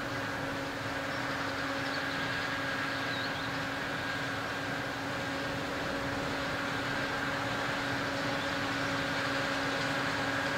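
Combine harvester running in the distance, a steady mechanical hum with a few held tones, slowly growing louder as it approaches.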